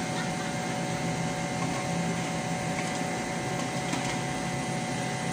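Steady hum inside a parked car, its engine idling and ventilation fan running, with a couple of thin steady tones over the low drone.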